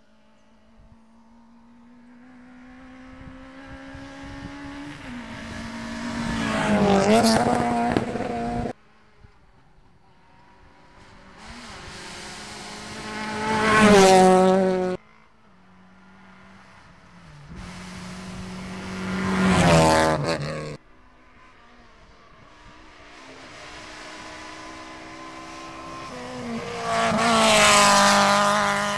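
Rally cars racing past one after another, four passes. Each car's engine note climbs and grows louder as it nears at full throttle, then drops as it goes by. Each of the first three passes cuts off abruptly.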